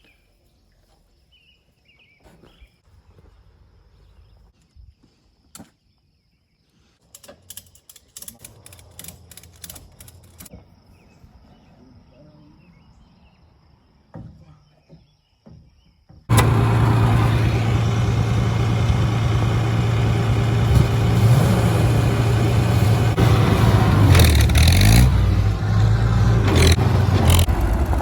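Quiet at first, with a few faint clicks and knocks; about sixteen seconds in, a tractor engine suddenly comes in loud and runs steadily, its pitch shifting up and down near the end.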